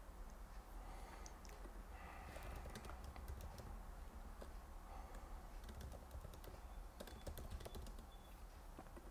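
Faint typing on a computer keyboard: a quick, irregular run of key clicks starting about two seconds in, over a low steady hum.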